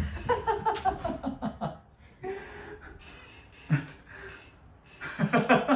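A person laughing softly: a run of quick chuckles in the first second and a half, and another near the end.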